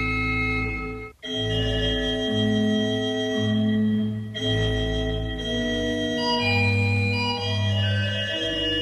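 Background organ music: slow, sustained chords over a deep held bass, shifting every second or so, with a brief break about a second in.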